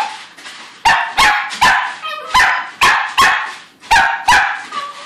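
A four-month-old Shetland Sheepdog puppy barking for her food: about eight sharp, high barks in quick groups of two or three, with a short whine between groups and a faint whine near the end.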